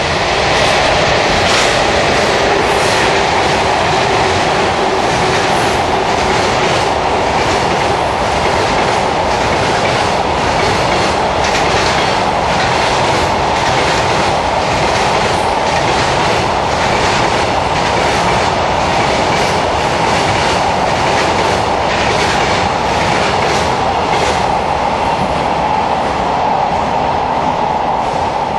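Container freight train hauled by an ED76 electric locomotive passing at speed: a continuous rolling roar with the wheels clattering over the rail joints in a quick, even rhythm.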